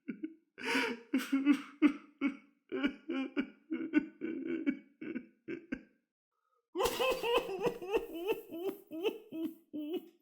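A man crying: sobbing breaths broken into quick, choppy voiced pulses several times a second, in two bouts with a pause of about a second and a half between them.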